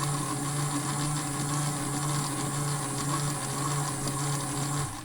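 The small motor of an AEG Electrolux Lavamat Klein toy washing machine spinning its drum on the spin cycle, a steady hum that stops shortly before the end.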